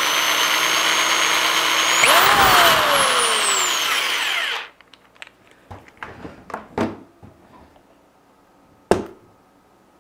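Electric drill motor running steadily while it spins a twisted pair of Cat5 data wires to untwist them. Its whine shifts and sweeps in pitch about two seconds in, and it stops abruptly a little before halfway. Light handling clicks follow, and there is one sharp knock near the end.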